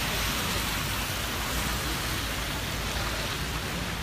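Steady hiss of city street traffic, with tyres running on a wet, slushy road, over a low rumble.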